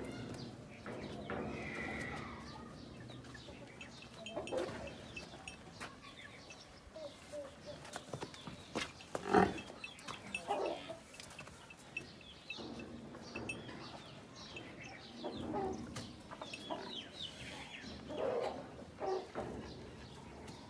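Farmyard ambience in a livestock pen: scattered short animal calls and small high clucks throughout, with one louder sound about nine seconds in.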